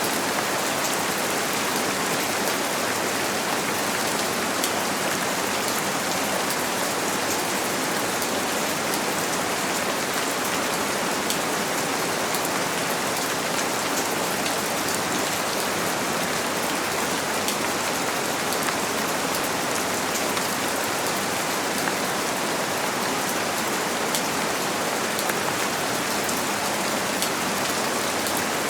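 Steady rain on a window: an even hiss with faint scattered drop ticks, unchanging throughout.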